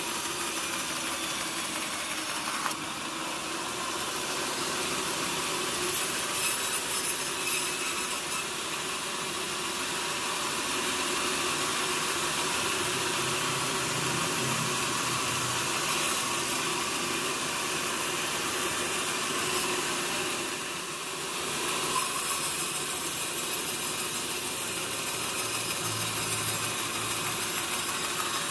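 Sawmill saw running steadily as it cuts through a mahogany log, with a brief dip in level a little after twenty seconds in.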